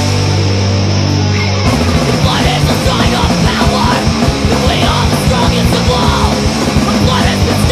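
Punk rock song with loud distorted guitar chords. About two seconds in the band thickens into a fast, driving part, and a shouted vocal comes in over it.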